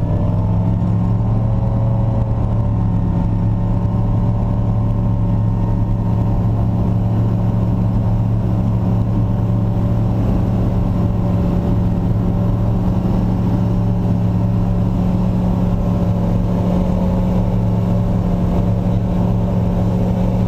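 A steady engine drone running at constant speed, a deep hum that does not change in pitch.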